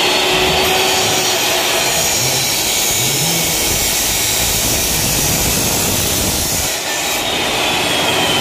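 Abrasive chop saw cutting through a metal roof-rail bar to shorten it: a loud, steady grinding with a high blade whine that slowly falls in pitch as the blade works under load, and a brief dip in level near the end.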